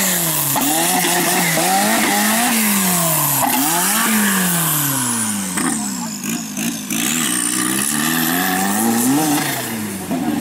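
Off-road racing buggy's engine revving hard, its pitch rising and falling over and over as the throttle is worked through the course.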